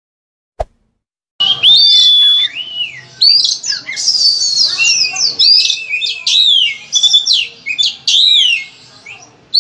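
A brief click, then from about a second and a half in, an oriental magpie-robin (kacer) singing loudly: a quick run of varied whistled phrases, with slides, falling notes and short chattering bursts. It is full-voiced song packed with fill-in phrases (isian).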